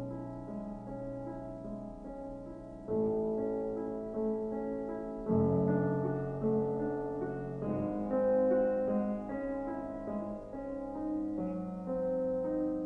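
Slow piano music, with held chords and a new chord struck every couple of seconds.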